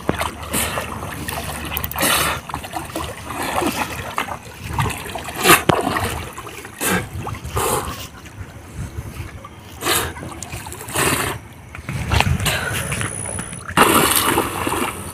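A swimmer's arm strokes splashing in pond water: irregular splashes about once a second, the biggest one near the end.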